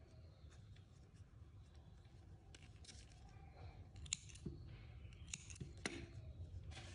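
Small yarn snips cutting black yarn, giving a few sharp clicks of the blades: one about four seconds in and two more a second or two later.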